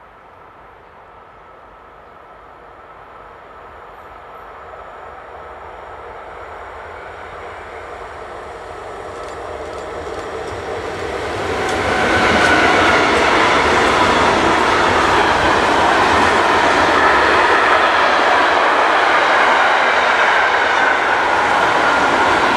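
Electric-hauled intermodal freight train of lorry trailers on pocket wagons, growing steadily louder as it approaches. About twelve seconds in it turns suddenly loud as the wagons roll past close by, and it stays steady with the noise of wheels on rails.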